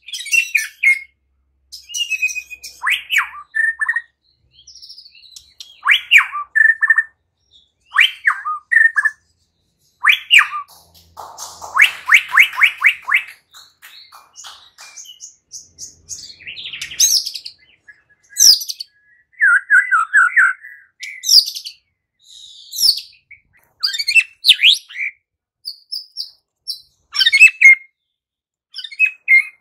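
White-rumped shama singing: a varied run of loud whistled and chattering phrases, each a second or so long and separated by short pauses, including one fast stuttering trill about twelve seconds in. It is the full, steady song that keepers play to provoke other shamas into singing.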